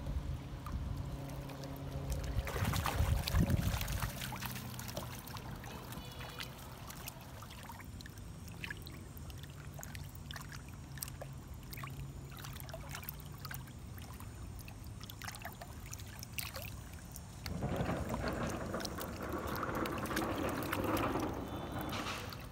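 Shallow river water lapping and splashing at a rocky shore as a hooked smallmouth bass is brought in close, with many small sharp splashes over a low steady hum. The splashing grows louder for the last five seconds.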